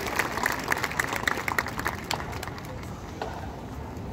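Audience applauding, the clapping thinning out and dying away about two seconds in, leaving a low background of crowd voices.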